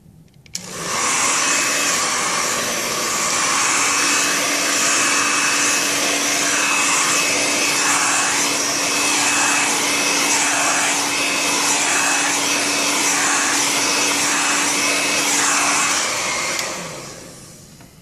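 Handheld hair dryer switched on about half a second in, blowing hot air with a steady motor hum and a thin whine under the rush of air, which wavers evenly about once a second. It is switched off near the end and runs down over about a second.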